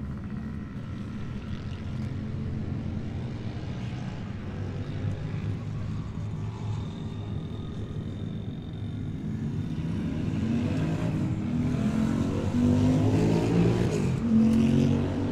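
Bultaco single-cylinder two-stroke racing engine running on the stand, ticking over steadily, then blipped with the throttle, the revs rising and falling and getting louder over the last few seconds.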